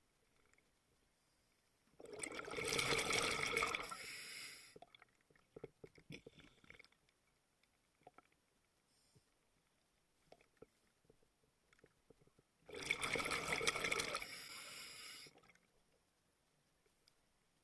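Scuba diver breathing out through a regulator: two bursts of bubbling, each about two and a half seconds long and about ten seconds apart, with faint clicks and bubble ticks between.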